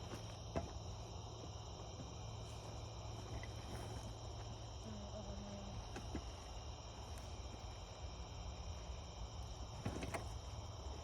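Steady night chorus of crickets, several high trilling tones held throughout, over a low hum, with a few sharp clicks near the start and about ten seconds in.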